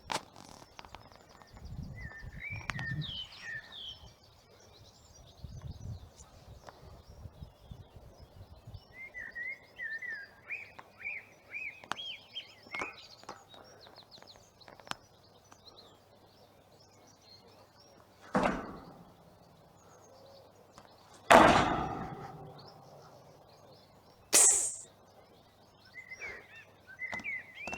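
Small birds chirping in short repeated phrases. Three brief loud rushes of noise come in the second half, the middle one the loudest and fading over about two seconds.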